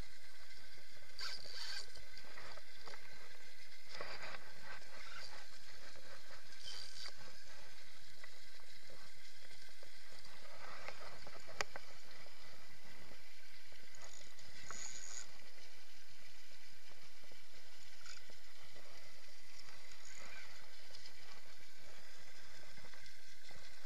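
Water splashing and churning as a hooked wels catfish thrashes at the surface close to the bank, in short irregular bursts over a steady background noise.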